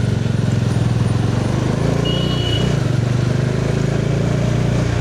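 Bajaj Dominar 400's single-cylinder engine running steadily. A short high tone sounds briefly about two seconds in.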